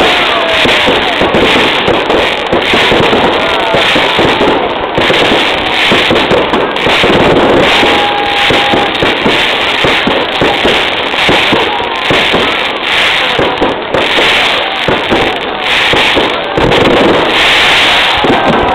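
Fireworks and firecrackers going off in a rapid, continuous string of bangs and crackles, with pulses of denser crackling about once a second.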